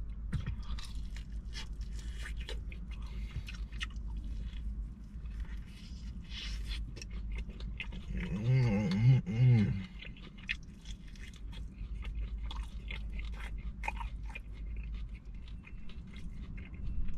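Close-miked chewing and crunching of sauced fried chicken, with many short wet, crackly mouth clicks. About eight seconds in, a pleased hum of about two seconds rises and falls over the chewing, and a steady low rumble sits under it all.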